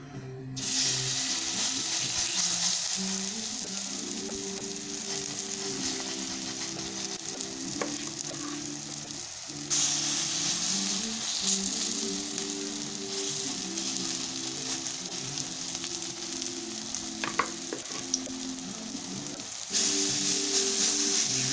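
Fritters of grated tender squash batter frying in a little oil in a pan: a steady sizzle that starts about half a second in and gets louder twice, near the middle and near the end, as fresh spoonfuls of batter go into the hot oil. A few light taps of the spoon are heard.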